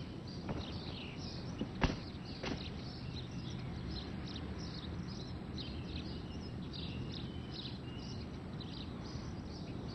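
Birds chirping and twittering over a steady low outdoor hum, with a single sharp thump just under two seconds in.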